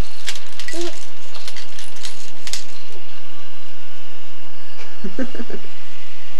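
A run of light clicks, then a 4.5-month-old baby's short coo about five seconds in.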